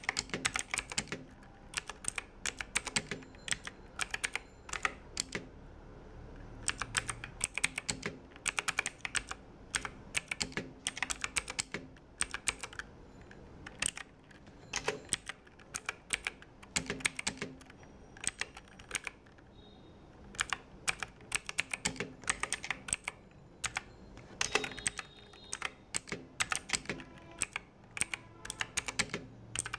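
Typing on a budget mechanical keyboard with clicky blue switches: fast runs of sharp key clicks that come in bursts, with short pauses between them.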